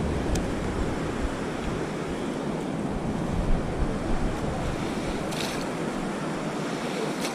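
Ocean surf washing steadily on the beach, with wind on the microphone; a brief scratchy sound about five and a half seconds in.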